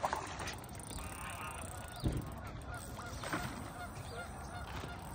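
Geese honking repeatedly in the background, a series of short arched calls, with a dull thump about two seconds in.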